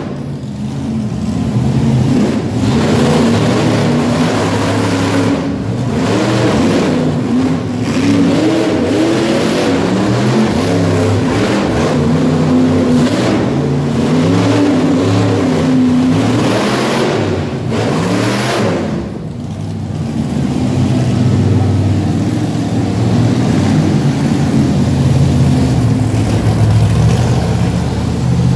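Monster truck engine revving hard, its pitch climbing and dropping again and again, with a couple of short lulls.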